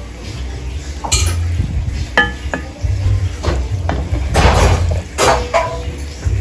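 A utensil knocking and scraping against a stainless steel pan while thick pasta in Alfredo sauce is stirred, with irregular clinks about a second apart and a brief ringing note from the pan.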